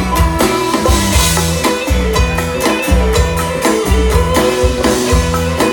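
Live band playing an instrumental break of a Thai folk-rock song: guitar over bass and a drum kit keeping a steady beat.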